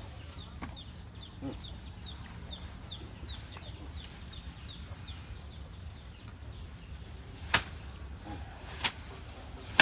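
A bird chirping: a quick run of short, high, falling notes, two or three a second, fading out about four seconds in, over a steady low rumble. Later, three sharp clicks, the loudest sounds here.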